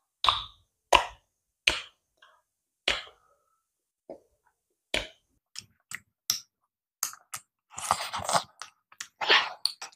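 Close-up eating sounds of a man with a mouthful of soft khichdi: wet lip smacks and chewing clicks, one every half second to a second, growing busier and more continuous near the end.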